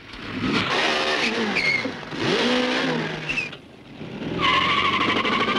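Fiat 124 Spider's engine revving hard in rising and falling sweeps as the car pulls away fast, with short tyre chirps, then a long steady tyre squeal near the end.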